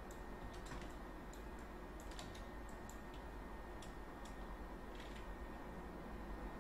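Light, irregular clicking of a computer mouse and keyboard, about a dozen sharp clicks spread unevenly, over a faint steady hiss.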